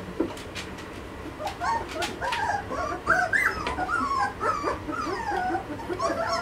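Two-and-a-half-week-old Belgian Malinois puppies whimpering and squeaking: many short, high calls that rise and fall and overlap one another, starting about a second and a half in.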